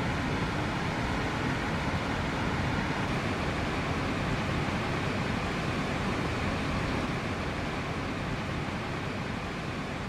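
Waterfall cascading over rock ledges: a steady, even rush of falling water with a low rumble beneath, easing slightly near the end.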